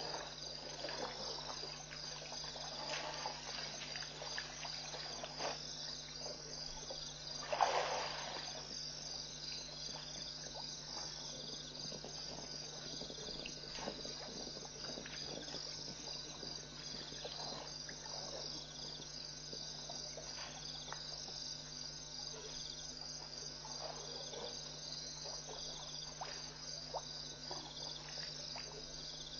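A steady, finely pulsing night chorus of crickets and other insects, over a steady low hum. Scattered short splashes and sloshes come from elephants drinking at the water's edge, with one louder splash about eight seconds in.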